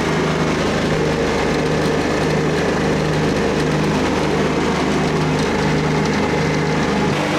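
Frost fan running loud and steady, its engine humming under the rush of the big fan, as the fan head turns on its oscillation. Near the end the low hum shifts.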